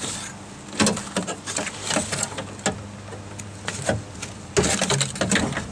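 Irregular small clicks and light knocks of hands fitting a metal lock rod into plastic door-handle parts inside a truck door, busiest near the end, over a faint steady hum.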